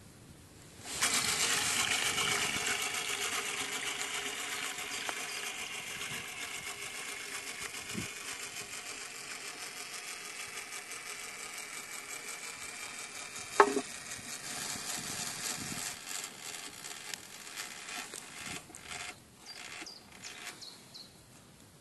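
Clockwork motor of a 1960s West German wind-up tin toy speedboat whirring as it runs, starting about a second in and slowly getting quieter. A single sharp knock near the middle, and irregular short knocks near the end.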